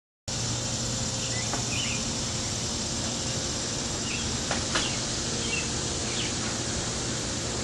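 A steady, high-pitched insect drone, most likely a cicada chorus. A few short bird chirps come through over it, along with two faint clicks near the middle.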